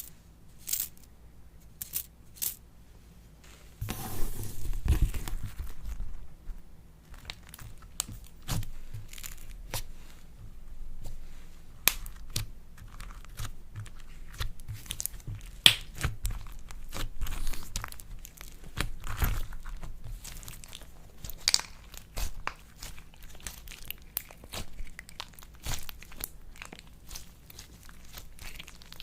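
Slime being handled, crackling and popping. It starts with a few separate sharp clicks, then from about four seconds in it turns into dense, continuous crackling.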